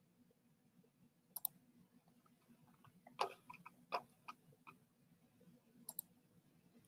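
A few faint computer mouse clicks, some in quick pairs, over near-silent room tone.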